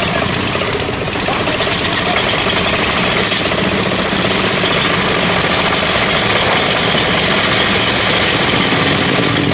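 A concrete mixer's engine running steadily, a dense, even mechanical noise with no change in speed.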